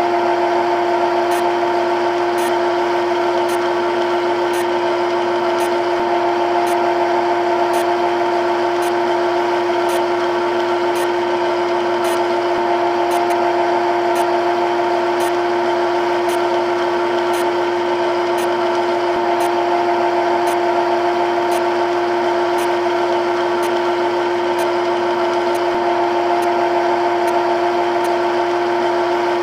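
CNC lathe running steadily, a constant machine hum and whine with faint high ticks about once a second.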